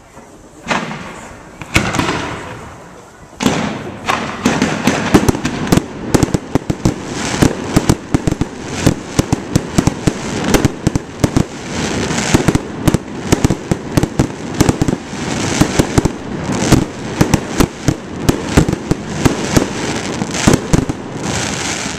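Fireworks display. A few separate shell bursts boom in the first few seconds, then from about four seconds a dense barrage of rapid bangs and crackling runs on without pause.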